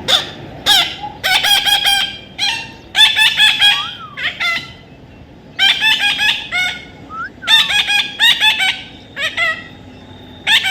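Parrot calling: loud, harsh squawks in quick bursts of several calls each, with short pauses between the bursts.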